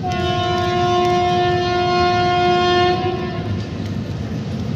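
Electric locomotive's horn sounding one long, steady blast that cuts off about three seconds in.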